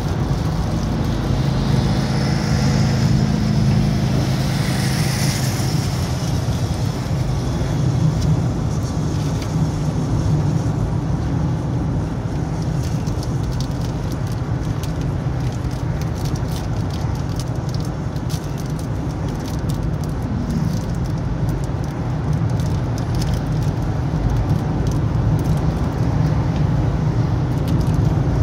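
A road vehicle being driven, with steady engine and road noise, plus faint crackling ticks in the second half.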